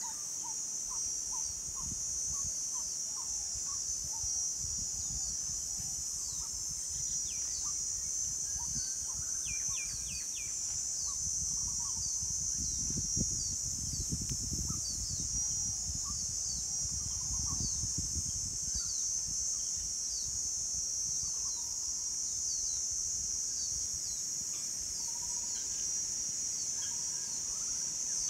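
A steady, high-pitched insect chorus with scattered bird calls and short repeated chirps. A low rumbling swells in the middle and fades again.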